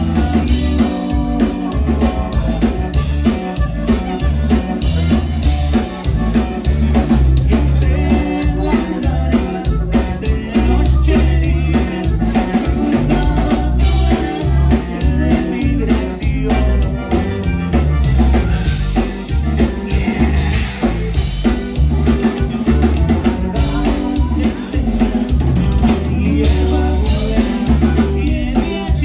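Live conjunto band playing a dance number, loud and steady, with drum kit and a strong bass line.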